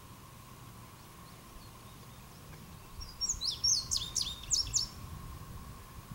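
A songbird sings a quick burst of high chirping notes about three seconds in, lasting a couple of seconds. Under it runs a faint, steady high-pitched hum.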